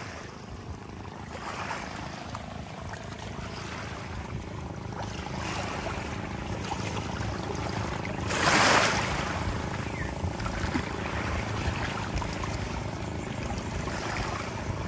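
Small sea waves lapping and washing against shore rocks and driftwood, a steady wash of water with one louder surge about eight seconds in.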